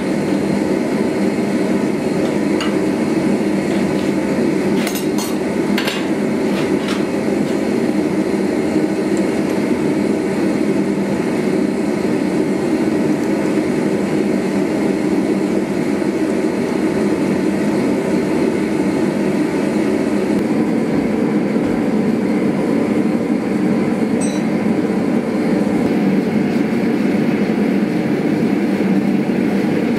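Gas forge running with a steady, even rushing noise, and a few light metal clinks about five to seven seconds in and once more near the end, from steel tools against the hot bar in a vise.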